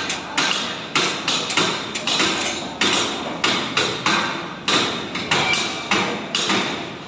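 Repeated hammer blows at a steady pace of about two a second, each a sharp strike with a short ring.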